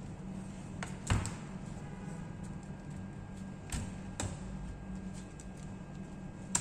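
A few sharp clicks and knocks over a steady low hum, the loudest about a second in: tools and plastic parts handled while a laptop is taken apart.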